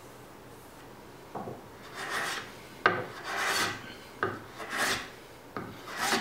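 A hand tool worked in slow, repeated strokes across oak: about five scraping strokes a second or so apart, several starting with a light knock as the tool meets the wood.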